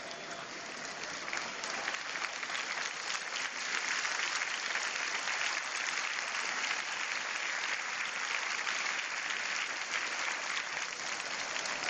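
A large crowd applauding, the clapping swelling over the first few seconds and then holding steady.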